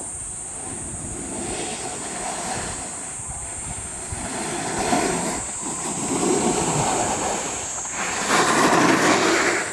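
Snowboard sliding down a slope: the board scraping over the surface with a rushing wind noise, swelling in surges and loudest near the end.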